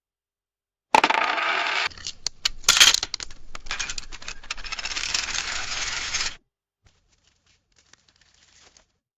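Coins clinking and rattling: starting about a second in with a dense pour, then separate clinks with a loud clatter near the three-second mark, a continued rattle that cuts off suddenly after about six seconds, and a few faint clicks near the end.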